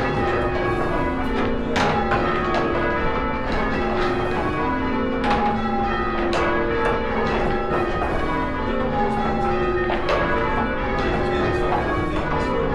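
Church tower bells change ringing: a ring of bells struck one after another in an even, continuous sequence of several strikes a second, their tones overlapping and hanging on between strikes.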